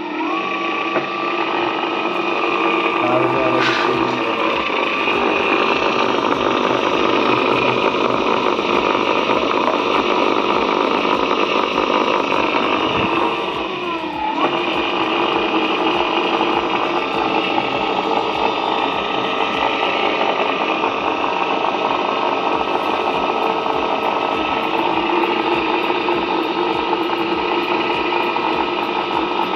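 A 72 V 4 kW PMSM electric motor and its reduction gearbox running on the bench at a steady low speed, making a steady electric whine with several tones. About halfway through, the pitch dips briefly and climbs back as the motor slows and picks up again.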